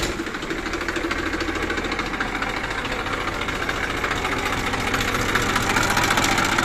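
Massey Ferguson 1035 DI tractor's three-cylinder diesel engine idling steadily moments after being started.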